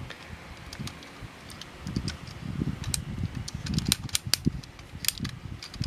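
Plastic parts of a 1987 Transformers Headmaster toy, Apeface, clicking and snapping as it is folded by hand into jet mode, over the soft rustle of handling. The clicks are scattered and become frequent after about two seconds.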